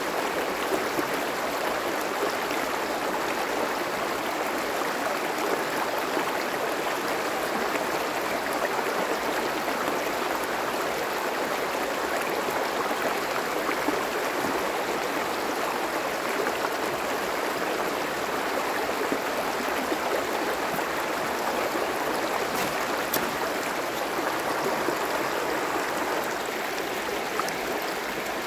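Shallow stream running fast over a rocky bed: a steady rush of water.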